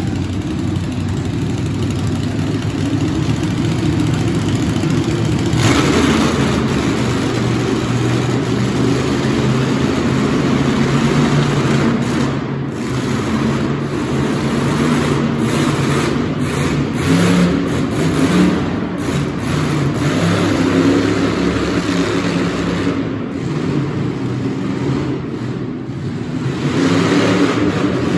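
Monster truck engine running, then opening up loud about five seconds in and revving in repeated bursts of throttle.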